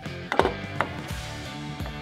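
Background music, with two light taps about half a second apart as a level is set down against a steel wall panel.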